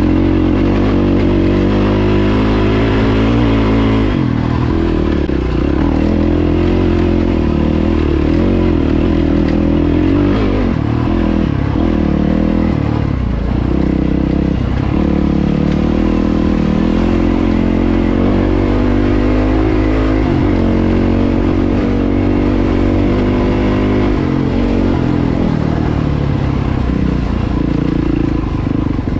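Yamaha WR450F's single-cylinder four-stroke engine running under load up a dirt track. Its pitch rises and falls as the throttle opens and closes.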